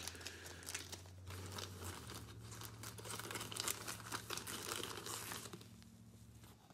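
Trading cards and their plastic or foil wrapping being handled: quiet crinkling and rustling with small clicks, dying down near the end.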